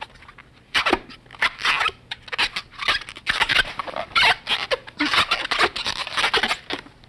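Inflated latex modelling balloon rubbing, squeaking and crackling in the hands as its last section is twisted to finish a balloon animal: a quick, irregular run of rubbery scrapes starting about a second in.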